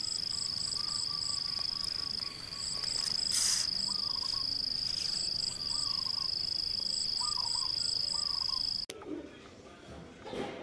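Outdoor insect chorus: a steady, high-pitched whine with a second, higher insect call pulsing in short runs of three or four, and a few short bird chirps. A brief hiss comes a little over three seconds in. The chorus cuts off abruptly about nine seconds in, leaving a quieter background.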